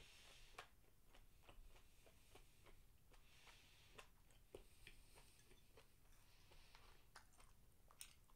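Faint chewing of a mouthful of diced beef steak and rice with the mouth closed: soft, irregular mouth clicks and smacks.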